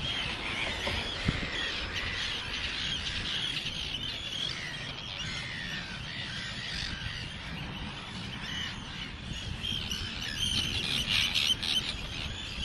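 A breeding colony of Arctic terns calling: many harsh, overlapping screeching calls, growing louder near the end.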